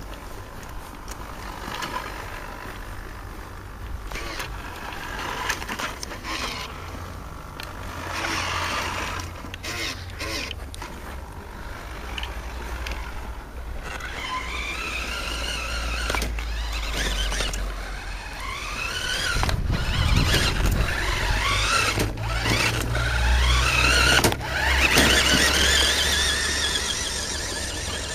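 Electric drive motor and gearbox of a radio-controlled toy Hummer H2 truck whining, the pitch sweeping up and down again and again as it speeds up and slows, louder in the second half, with scattered short knocks.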